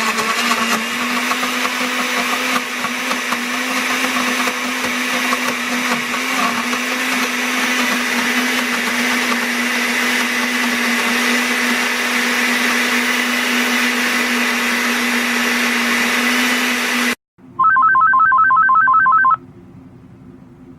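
A loud electric motor appliance runs steadily, a constant hum under a rushing noise, then cuts off abruptly near the end. Right after, a rapid electronic trill of beeps sounds for about two seconds.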